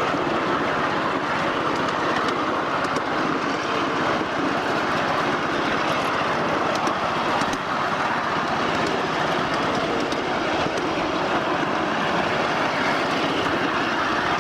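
Ride-on 1/8-scale live steam train running along its track, a steady noise of wheels and running gear on the rails.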